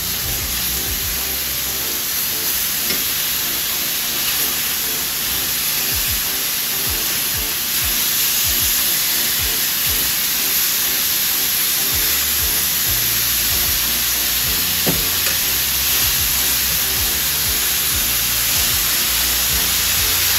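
Watermelon wedges sizzling steadily on a hot ridged grill pan, with a few light knocks as the skewered pieces are turned over. Background music plays underneath.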